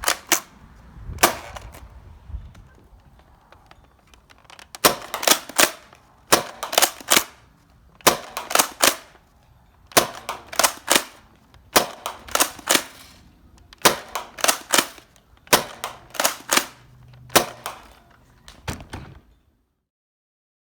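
Nerf Rival Takedown pump-action blaster being worked and fired over and over: sharp plastic clacks in quick clusters about every second and a half. They stop about nineteen seconds in.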